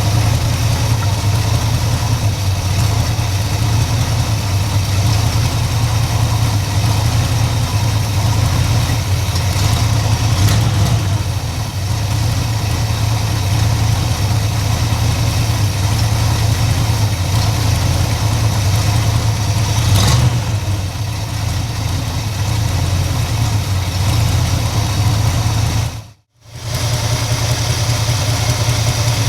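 1968 Ford Ranchero's engine idling steadily on a freshly rebuilt Edelbrock four-barrel carburetor, with slight swells in speed about a third and two thirds of the way through. The idle is 'not great', with the ignition timing only roughly set by a paint mark. The sound cuts out for a moment near the end.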